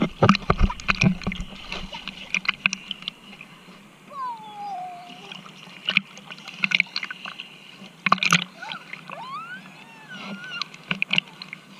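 Sea water splashing and sloshing around a swimmer, in short irregular splashes.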